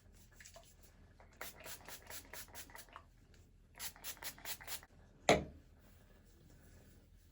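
Hands rubbing through hair in short scratchy strokes, two quick runs of about four or five a second, then one louder rub near the end.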